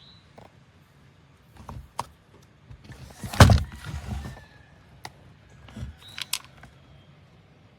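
A string of clicks and clunks from a handheld gas chainsaw being handled, with one louder, rasping burst about three and a half seconds in.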